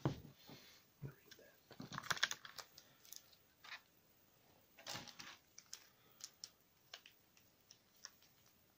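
Pokémon cards and foil booster packs being handled over an open metal tin: scattered light clicks, taps and rustles, with small clusters about two and five seconds in.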